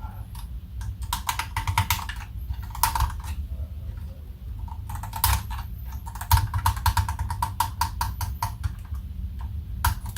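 Rapid runs of small clicks and taps from plastic instrument-cluster parts as the gauge needles are pressed back onto their spindles, some clicks with a short ring.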